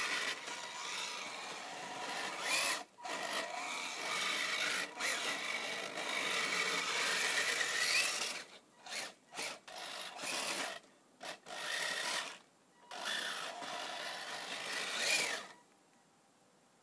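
Kyosho Blizzard DX RC snowcat's twin 400-size electric motors and gear drive whirring as it drives through deep fresh snow. It starts and stops repeatedly, with several short pauses in the second half, and cuts off near the end.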